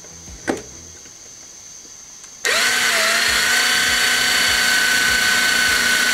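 Electric drill with a fine bit starting up abruptly about two and a half seconds in and running at a steady speed as it drills a small hole in the plastic housing of a car turn-signal lamp. A light click comes just before, about half a second in.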